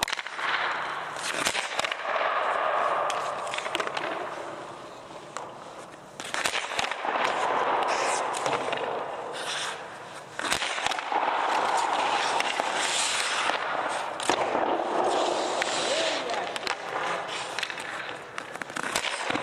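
Ice hockey shooting drill: sticks slapping pucks and pucks smacking off a goalie's pads, sharp cracks at irregular intervals, over the steady scrape of skates on the ice.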